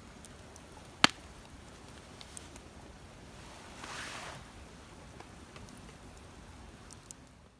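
Wood campfire crackling with faint scattered ticks and one sharp, loud pop about a second in. A brief soft rush of noise swells and fades around four seconds in.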